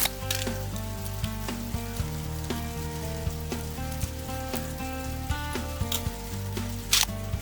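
Background instrumental music with sustained notes and a steady bass, over scattered sharp clicks and a louder knock near the end.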